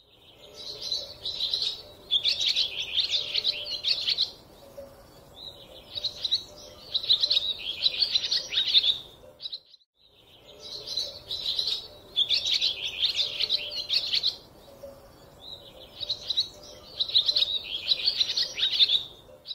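Small bird chirping and twittering in quick, high runs of notes, with pauses between phrases. The same stretch of about nine seconds of song plays twice, with a brief break near the middle.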